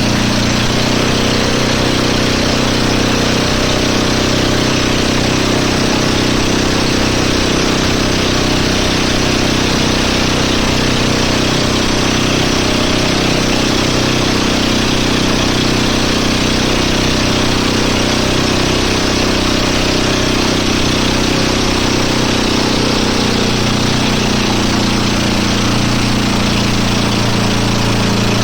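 Engine of the boat towing a banana boat, running steadily at an even speed.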